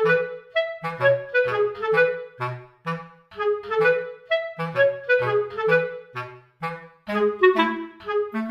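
Light, bouncy background music: a run of short, detached melody notes over a plucked bass line.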